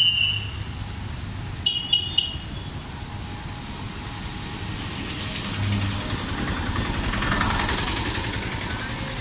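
Road traffic noise, with a vehicle passing close and swelling loudest near the end. About two seconds in, three short, sharp, high-pitched toots sound in quick succession.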